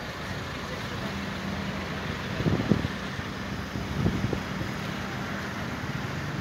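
An engine running steadily with a low hum, under outdoor wind noise, with two short louder bumps about two and a half and four seconds in.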